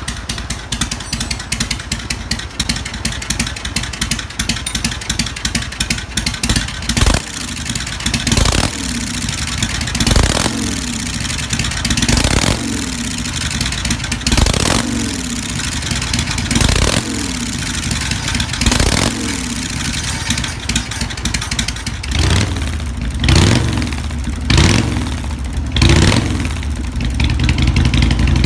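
Harley-Davidson Sportster V-twin running through slash-cut drag pipes: an uneven, pulsing idle, then throttle blips about every two seconds from about seven seconds in, each rev dropping back to idle, with a quicker run of four blips near the end.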